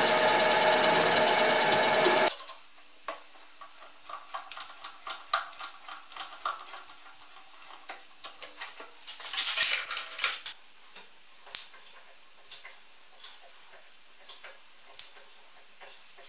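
Drill press running, its bit cutting into a steel clamp ring for about two seconds, then stopping abruptly. After that come quiet metal clicks and scrapes from handwork on the part, with a louder scraping flurry about halfway through.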